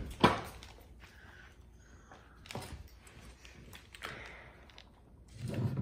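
Plastic toy track being handled: one sharp knock just after the start, then a few faint clicks and rustles, with a duller bump near the end.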